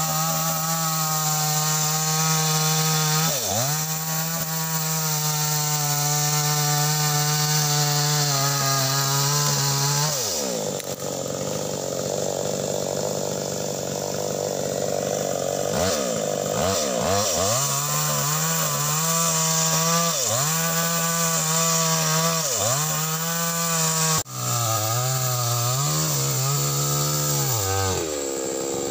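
Two-stroke chainsaw running hard and cutting wood. Its engine pitch sags again and again as the chain bites into the cut and rises back as the throttle is held open. The sound breaks off sharply for an instant about three-quarters of the way through.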